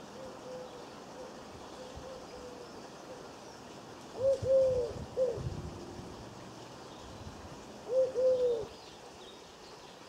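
A pigeon cooing off-screen: low, arched coos in two louder phrases about four seconds apart, with fainter coos in the first few seconds.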